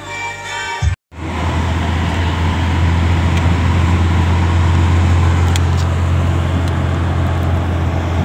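About a second of music cuts off suddenly. It gives way to the steady low rumble of a car driving on a highway, heard from inside the cabin: engine drone and tyre and road noise.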